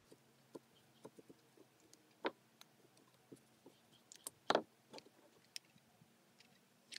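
Scattered light clicks and taps of felt-tip markers and small egg-carton pieces being handled on a tabletop, with one louder knock about four and a half seconds in as the marker is put down and a hot glue gun picked up.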